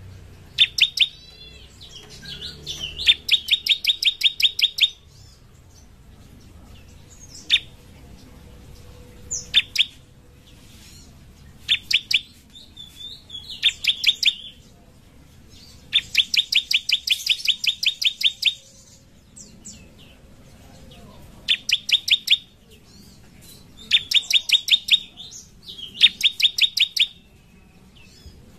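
Bar-winged prinia (ciblek) singing: runs of rapid, sharp, evenly repeated high notes, each run lasting one to three seconds, separated by pauses with a few single down-slurred notes.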